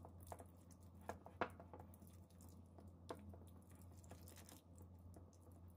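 Faint soft wet stirring of a silicone basting brush through oil, honey and minced garlic in a glass bowl, with a few light ticks of the brush against the glass, over a low steady hum.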